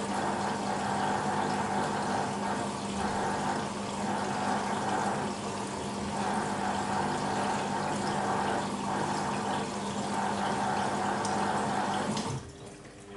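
BEKO WMB 51441 washing machine with water running through it and a steady hum from its valve or pump, swelling gently every second or two, then cutting off sharply near the end.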